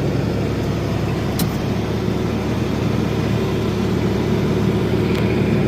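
Steady drone of a farm vehicle's engine running at an even speed, heard from inside its cab.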